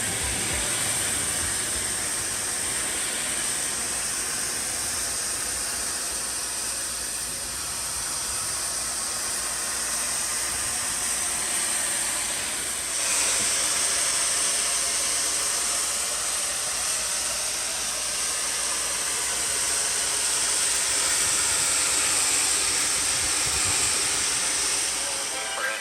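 A steam cleaning gun hissing steadily as it sprays superheated steam onto old brickwork to lift carbon staining, growing louder and brighter about halfway through.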